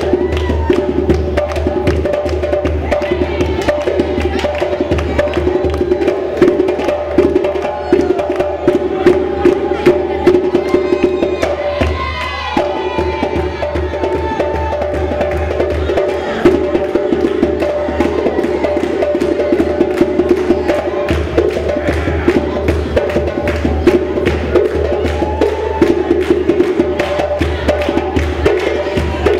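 Music driven by fast, dense drumming, with sustained pitched parts underneath.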